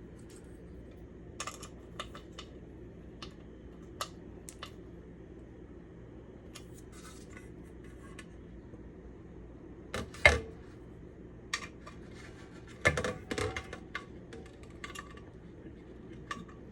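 Sporadic small metallic clicks and taps as a handle is screwed onto a stainless steel pan lid with a screwdriver, with two louder knocks about ten and thirteen seconds in.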